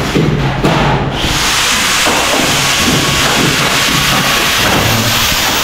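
A loud, steady hiss that starts about a second in and holds without a break.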